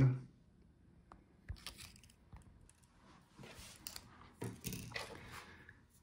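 Faint handling noises of a laptop touchpad module and other parts on a desk: a few small clicks and short rustles, the sharpest click about a second and a half in.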